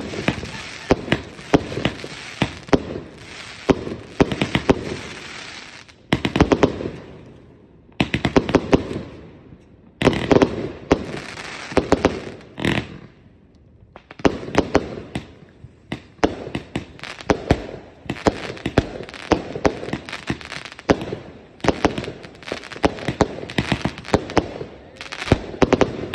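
A 225-shot "King Bunny" consumer firework cake firing a rapid string of shots and aerial bursts, with the volleys pausing briefly a few times.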